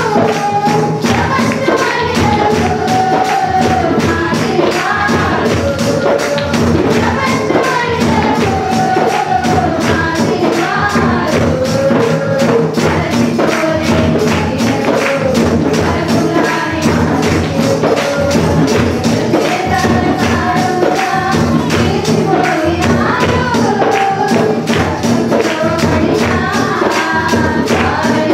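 A congregation singing a Telugu hymn together, with a steady percussion beat.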